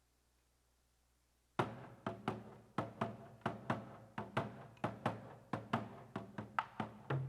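Korean traditional drums start up suddenly about a second and a half in, after near silence, playing a steady rhythm of about three strokes a second with some strokes accented.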